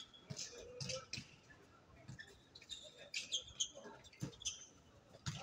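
Basketball shoes squeaking on an outdoor court surface, in short high chirps, with a basketball thudding a few times as it bounces.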